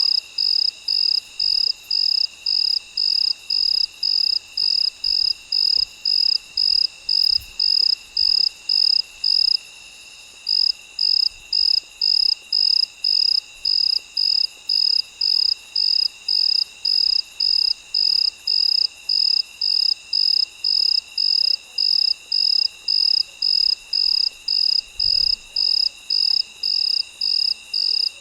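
A cricket chirping in an even rhythm of about two high-pitched chirps a second, with one short pause about a third of the way in. A steady high trill of other insects runs underneath.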